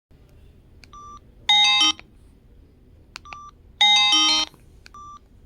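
Samsung SGH-X507 mobile phone giving short quiet key beeps, each pair followed by a loud snippet of a polyphonic ringtone that cuts off after under a second, twice, as ringtones are previewed one after another.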